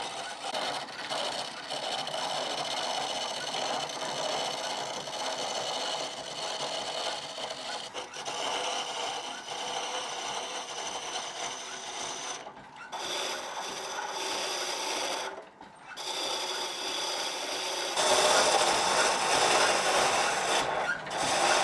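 Turning gouge cutting a spinning wooden chisel handle on a foot-powered treadle lathe: a continuous rasping as the tool peels shavings from the wood. It breaks off briefly twice past the middle and grows louder near the end.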